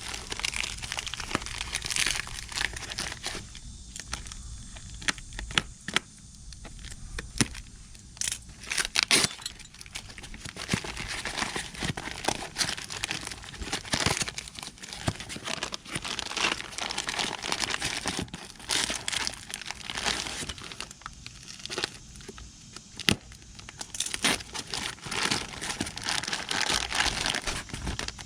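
Packaging wrap being crinkled and torn off new motorcycle backrest parts: irregular crackling and rustling with sharp clicks and handling knocks, in spells with short lulls.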